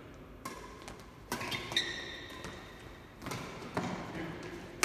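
Badminton rackets hitting a shuttlecock back and forth in a doubles rally: about six sharp hits at uneven spacing, some with a short ring after them, echoing in a large hall.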